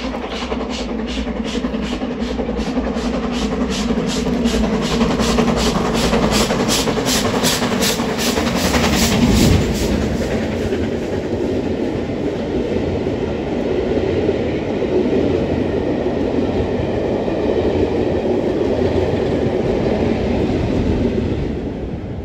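GWR Castle class four-cylinder 4-6-0 steam locomotive 7029 Clun Castle passing under steam. Its exhaust beats come at roughly three a second and close up as it nears, loudest about nine seconds in. Then its coaches roll past in a steady rumble that fades near the end.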